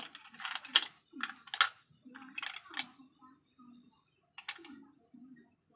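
Kitchen scissors snipping abalone slices: about eight short, sharp snips, most close together in the first three seconds, the last one about four and a half seconds in.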